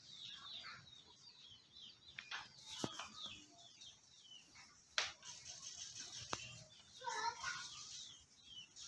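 Faint, continuous chirping of small birds, many short falling chirps overlapping, with a few sharp clicks scattered through.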